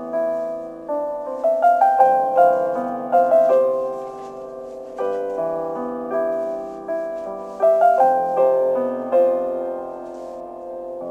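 Background music: a gentle solo piano piece, chords and melody notes struck in small runs and left to ring.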